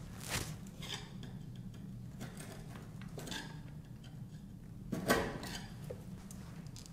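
Metal putty knife scraping paint around a wall switch box, in several short scrapes. The loudest comes a little after five seconds.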